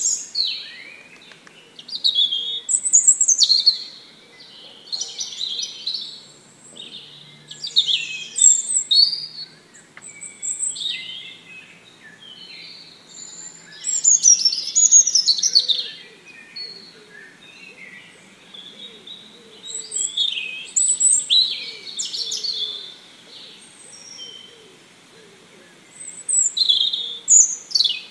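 Birds chirping and singing in short phrases of quick sweeping notes, a new phrase every couple of seconds.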